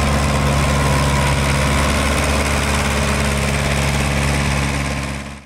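Nuffield tractor engine running steadily with an even low note, fading out sharply near the end.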